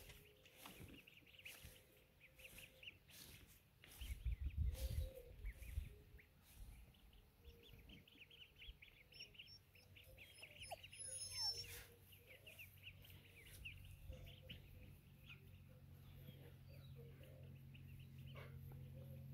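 Ducklings peeping: many quick, high chirps, thickest around ten seconds in. A brief low rumble comes about four seconds in.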